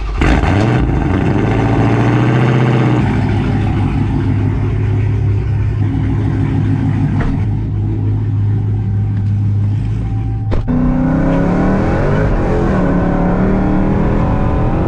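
Car engine revving up and then running steadily under way, its pitch shifting a few times as the car drives off. About three-quarters of the way in there is a sharp click, after which the engine note varies more.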